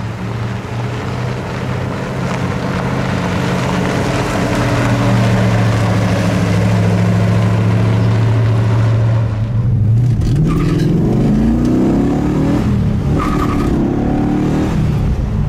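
A 1967 Dodge Coronet R/T's 426 Hemi V8, first heard driving across a lot as a steady engine note that grows louder. From inside the car, the engine then rises in pitch twice as it accelerates, with a short break between the pulls as it shifts its four-speed manual.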